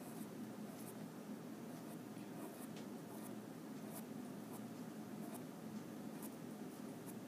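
Faint scratching of a wooden pencil on paper in short, irregular strokes as small curved bumps are drawn, over a steady low room hum.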